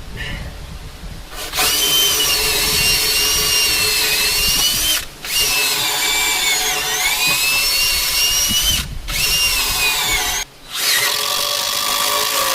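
Electric power tool motor whining in long runs with brief stops between, its pitch sagging under load for a moment in the middle.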